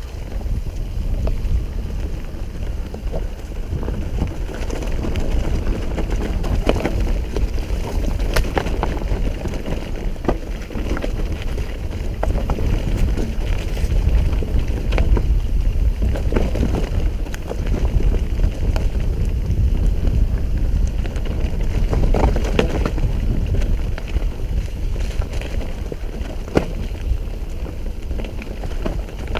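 Mountain bike descending a dirt and stone forest trail: a constant low rumble of wind on the microphone and tyres over the ground, with frequent sharp knocks and rattles over bumps.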